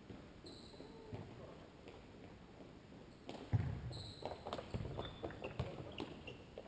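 Futsal being played on an indoor court: short high squeaks of players' shoes on the floor, a loud thud of the ball being struck about three and a half seconds in, then a quick run of footsteps and ball touches.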